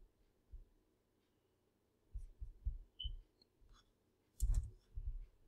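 Computer mouse and keyboard clicking at a desk: a few short clicks with dull low thumps from about two seconds in, and a louder, sharper click about four and a half seconds in, followed by a couple more thumps.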